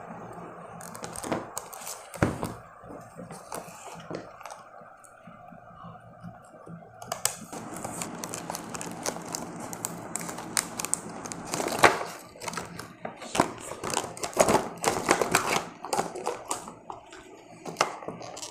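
Scissors cutting through a stiff clear plastic blister pack, with crackling and crinkling of the plastic as it is cut and pulled apart. The first seven seconds are quieter handling with a few clicks, and the dense cutting and crackling starts about seven seconds in.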